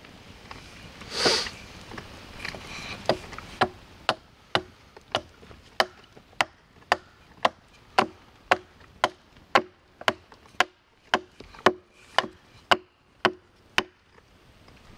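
Hatchet chopping a wooden spoon blank held on a chopping stump: about twenty sharp, evenly paced blows, roughly two a second, each with a short ring, roughing out the ladle's shape. A brief noisy burst comes about a second in, before the chopping starts.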